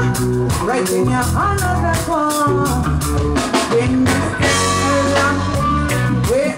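Live reggae band: a woman sings lead over bass, drum kit and guitar, with a cymbal crash about four and a half seconds in.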